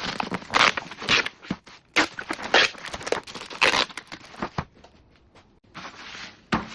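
Plastic keycaps being handled: irregular clicking, clattering and rustling, with a sharp click near the end.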